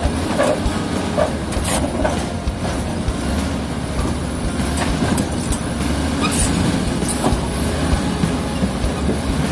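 Komatsu D85E-SS crawler bulldozer working: its diesel engine runs steadily under load, with frequent clanks and a few brief squeaks from the steel tracks.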